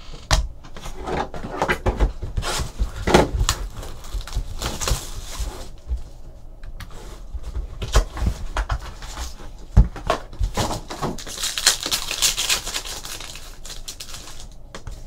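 Trading card packaging handled by hand: cardboard box and cards tapping and clicking, then a foil card pack crinkling and tearing open, the crinkling loudest in the stretch before the end.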